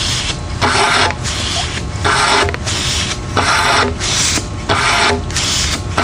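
Mighty Pump hand condensate-drain pump being worked in quick, even strokes, each stroke a rush of air and water through its hoses as it sucks out an HVAC condensate drain line, about three strokes every two seconds.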